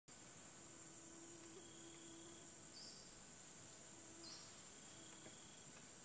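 Insects in a rainforest keeping up a steady, high-pitched, unbroken drone, with two brief faint higher calls about three and four seconds in.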